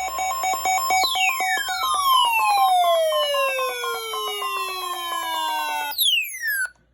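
Electronic, siren-like alert sound: rapidly pulsing tones with clicks, and from about a second in a falling pitch sweep with many overtones that slides down over about five seconds. It stops abruptly, and a second, quicker falling sweep follows before it cuts off.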